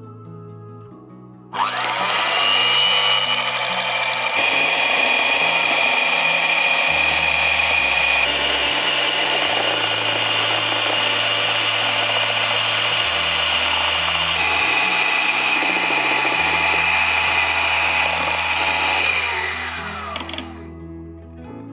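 Hand-held immersion blender running in a plastic measuring jug, emulsifying oil into a thick aioli. Its high motor whine starts about a second and a half in, shifts in pitch a few times as the sauce thickens, and winds down near the end.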